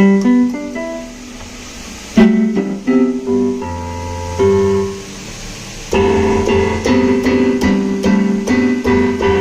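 Yamaha PSR-290 electronic keyboard playing a piano-like voice through its own speakers: single notes and short phrases, then from about six seconds in a fuller part with a steady beat. The keyboard's sound output is working again after repair.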